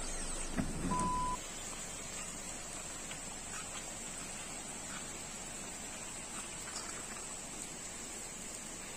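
Steady rain falling on foliage and floodwater: an even hiss with scattered drop ticks. About a second in, a short low thump and a brief high beep sound, and then the hiss drops a little in level.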